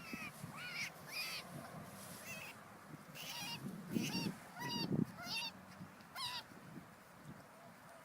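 A series of short, wavering bird calls, about a dozen of them, that stop after about six seconds, with a couple of low thumps in the middle.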